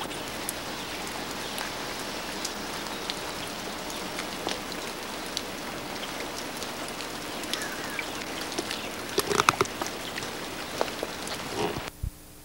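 Steady rain falling, with scattered drops ticking close by. A cluster of louder knocks comes about nine seconds in and again near the end, just before the sound drops suddenly to a faint steady hiss.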